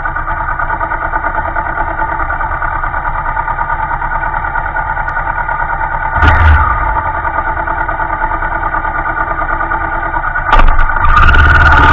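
Motorcycle engine idling with an even pulse, blipped briefly once about six seconds in. About ten and a half seconds in it revs up and stays louder, with wind noise rushing in near the end.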